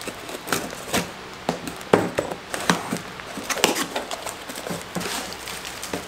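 A small cardboard box opened by hand: tape peeled off and cardboard flaps scraping and tapping in irregular clicks, then plastic bubble wrap rustling as the part inside is lifted out near the end.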